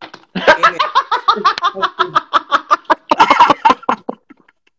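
Hearty laughter: a long, loud run of rapid laughs, about five a second, that dies away about four seconds in.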